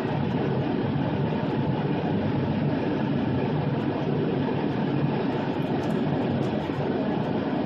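Steady road and engine rumble heard from inside a car's cabin while driving on a snow-covered highway, tyres running over packed snow and slush.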